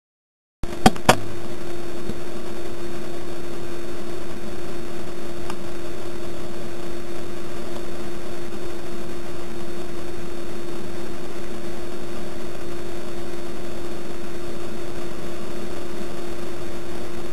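Steady rushing noise of a large whitewater rapid heard close up, with a faint even hum through it. Two sharp clicks sound about a second in as the sound starts.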